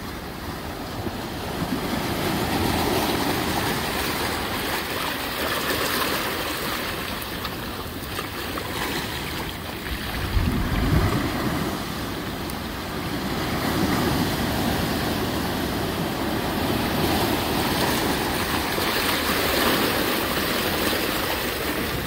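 Ocean surf washing onto a beach: a continuous rushing hiss that swells and ebbs as successive waves break, loudest about ten seconds in.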